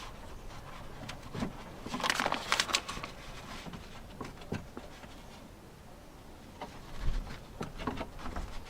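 Scattered clicks and light metallic rattles of tools and parts being worked inside a car door, busiest about two seconds in, with a dull knock about seven seconds in.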